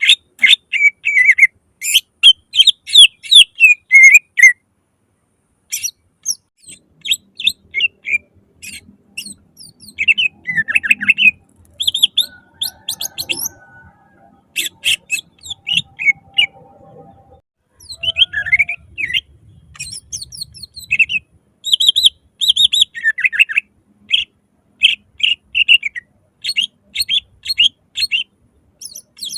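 Green leafbird (cucak ijo) singing loudly: quick runs of sharp chirps and whistled notes in phrases, with a pause of about a second roughly five seconds in.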